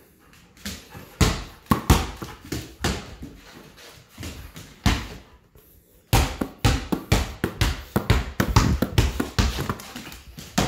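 Rapid, irregular thumps and knocks of varied loudness: one run of them, a short lull about five seconds in, then a denser run.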